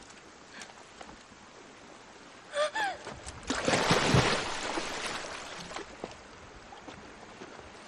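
A woman's short cry about two and a half seconds in, then a large splash as a bamboo cage is thrown into a river, the water noise fading over about two seconds.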